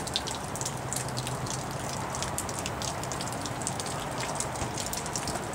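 Light rain falling, a steady patter with many small drops ticking.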